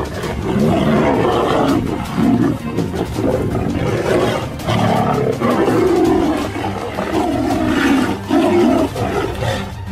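Tigers fighting, snarling and roaring in long bouts with short breaks.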